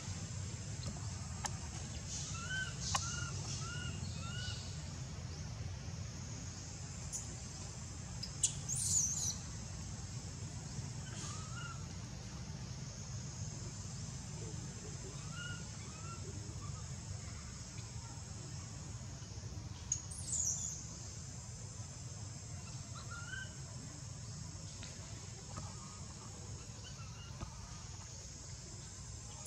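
Outdoor tree-canopy ambience: short bird calls repeat, including a quick run of four a few seconds in, and a couple of brief high chirps, over a steady low rumble.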